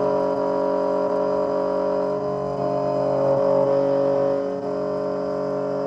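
Electric key-cutting machine running steadily while it cuts a transponder key blade, a loud even motor whir.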